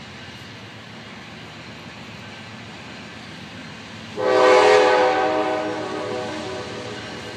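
Air horn of a Norfolk Southern wide-cab GE diesel locomotive sounding for the grade crossing: a loud chord of several tones that starts suddenly about four seconds in and eases off slowly, over a low steady rumble.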